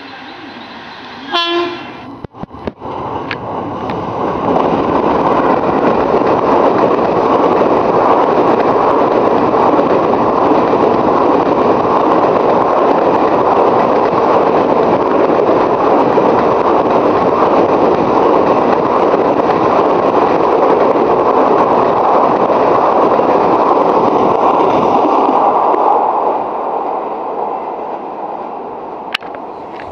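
Brief blast of a WAP-4 electric locomotive's horn, then the express train passing close by: a loud, steady noise of wheels and coaches on the rails for over twenty seconds, dying away near the end.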